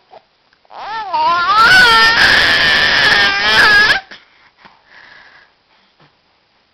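A baby crying out in one long, loud, high-pitched wail that rises and falls, starting just under a second in and stopping suddenly about four seconds in, followed by a few faint small sounds.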